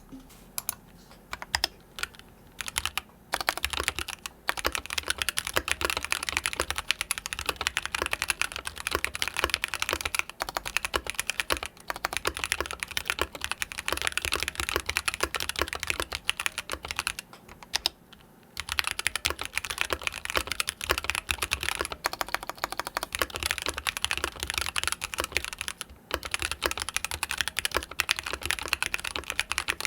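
Type test on a Mode 65 mechanical keyboard with Gateron Ink Black linear switches, stock and unlubed on the letter keys, built with an FR4 plate, aluminum top case and brass bottom plate: a few scattered keystrokes, then fast steady typing clacks, with a pause of about a second and a half a little past halfway.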